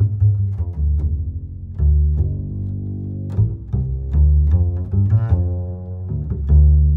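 Background music: a deep, bass-heavy instrumental track with plucked string notes over sustained low tones.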